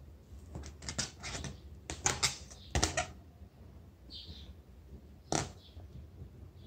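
Ballpoint pen scribbling on an inflated rubber balloon: a run of short rubbing strokes in the first three seconds, then one more about five seconds in.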